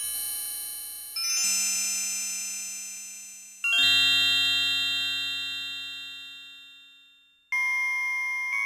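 Roland Super Jupiter (MKS-80) analog synthesizer playing a custom sound effect: a series of five struck, chime-like clusters of high tones. Each starts suddenly and fades slowly, and the third, about four seconds in, is the loudest.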